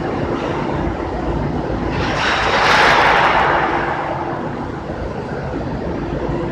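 Sawdust charcoal making machine running: a steady mechanical drone and rumble with a faint hum, and a hissing rush that swells up about two seconds in and fades away.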